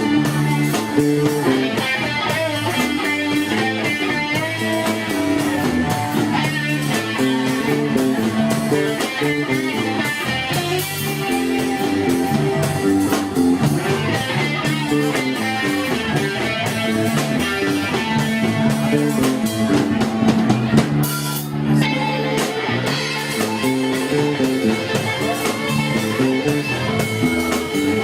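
A rock band playing live: guitar over bass and drum kit, in a steady groove.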